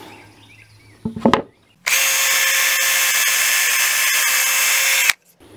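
A cordless drill boring a hole into a timber brace: a couple of knocks about a second in, then the drill runs at a steady, even speed for about three seconds and stops abruptly.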